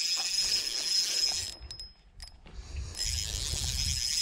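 Insects trilling steadily in a high, even buzz, over a low rumble of rod-and-reel handling while a spinning reel is cranked against a hooked trout. Everything cuts out for about a second in the middle, with two light clicks.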